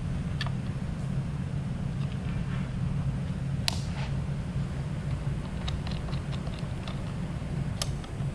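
Light metallic clicks and taps of a wrench and a motorcycle mirror mount being handled and tightened, with one sharper click about halfway and a quick run of small ticks later on, over a steady low hum.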